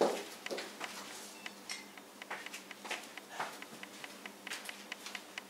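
Faint, scattered light clicks and taps, a few a second, slightly louder at the start.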